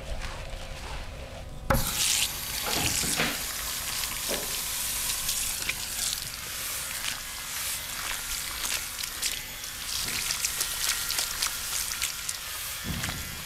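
Hands rubbing and kneading skin and hair close to the microphone during a massage: a dense, crackling rustle with a few soft swishing strokes. It starts abruptly about two seconds in, after a quieter, duller stretch.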